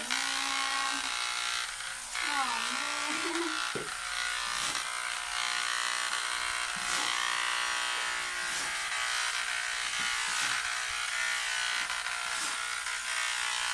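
Corded electric hair clippers buzzing steadily as they cut a child's hair.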